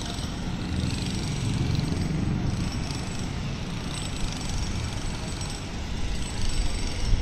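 Steady outdoor background noise: a continuous hiss with an uneven low rumble, and one short knock about four seconds in.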